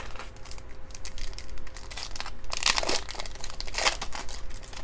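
Foil wrapper of a trading-card pack crinkling as it is pulled from the box and torn open. The crackles come in irregular bunches, loudest about two and a half and four seconds in.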